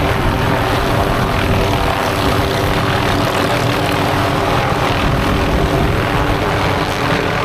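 MD 500D turbine helicopter running steadily, its rotor and engine giving a loud, even drone with a steady hum of several tones under a wide hiss.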